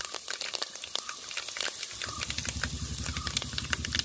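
Curry leaves and mustard seeds sizzling in hot sunflower oil in a nonstick pan, with a steady hiss and many quick crackles and pops.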